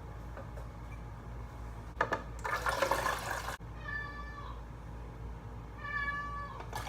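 A domestic cat meowing twice, two drawn-out steady calls, the second a little longer. A brief rush of running water comes about two seconds in, just before the meows.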